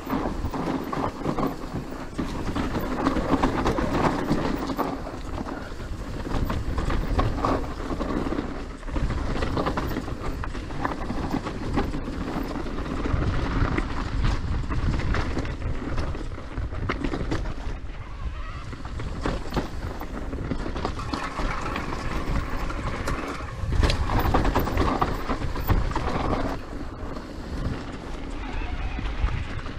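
Specialized Kenevo SL S-Works e-mountain bike descending a dirt trail: a steady rush of tyres rolling over dirt and leaves, broken by frequent knocks and rattles from the bike over bumps, louder in a couple of faster stretches.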